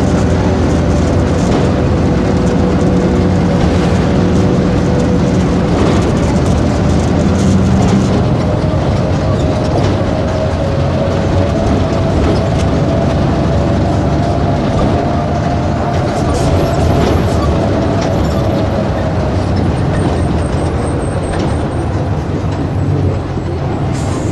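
Diesel engine of a Volkswagen 17.230 EOD city bus running under way. A steady low hum gives way after about eight seconds to a higher whine that slowly rises and then falls again.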